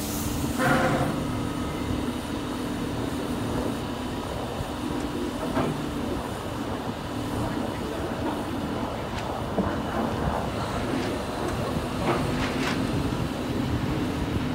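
Crane engine running steadily while it holds a suspended load: a constant low drone with a steady hum. A brief higher-pitched sound about a second in, and a few light clicks and knocks near the end.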